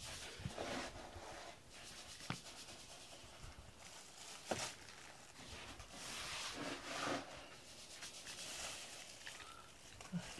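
Soft rubbing and rustling of a hand stroking a cat's fur close to the microphone, with two sharp clicks about two and four and a half seconds in.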